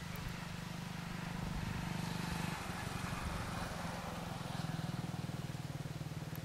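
An engine running steadily: a low, fast-pulsing hum whose note shifts a little about halfway through.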